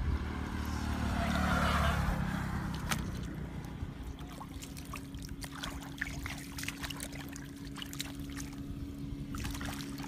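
Hands splashing and sloshing in shallow muddy water, with many small clicks and drips; wind rumbles on the microphone in the first couple of seconds, and a steady low hum sits underneath from about four seconds in.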